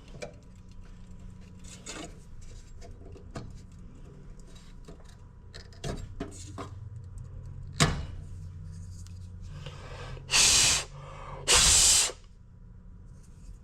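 Two short, loud bursts of hissing air blown through a furnace's pressure switch tubing to check it for a blockage, over a low steady hum with small clicks and handling of parts, and one sharp click a little before.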